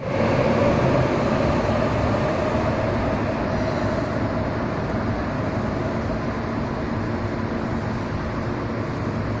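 Loud, steady air-conditioning noise on an underground subway platform. A faint tone in the first couple of seconds fades away.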